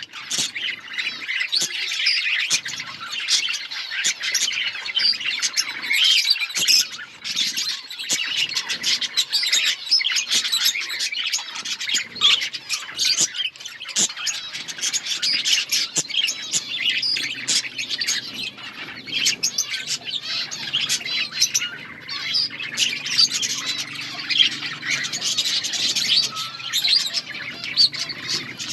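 A flock of budgerigars chirping and chattering continuously, many birds calling over one another with sharp squawks among the warbling. A faint low hum joins about halfway through.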